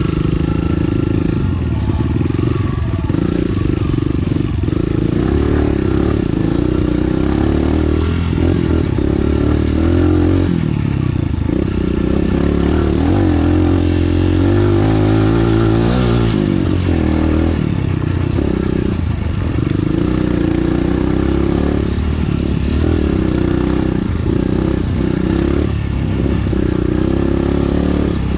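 Enduro dirt bike engine running while riding a trail, its pitch rising and falling with the throttle.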